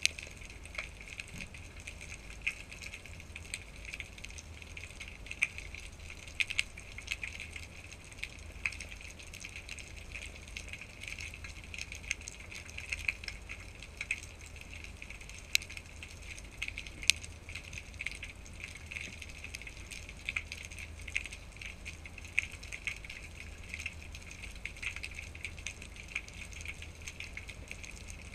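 Underwater ambience picked up by a GoPro camera beneath the sea: a steady crackling with many scattered sharp clicks over a low rumble.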